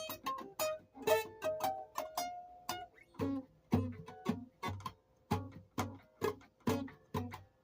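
Instrumental music on a plucked string instrument, guitar-like: a run of quick single notes, then from about three seconds in a steady pulse of plucked notes with bass, roughly two a second.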